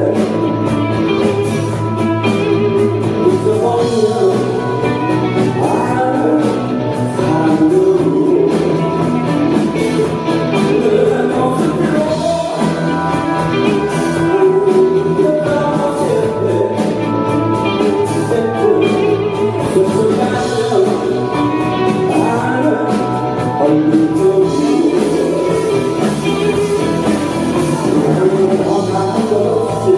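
Live band playing a slow rock song with a singer, voice over guitar and band accompaniment.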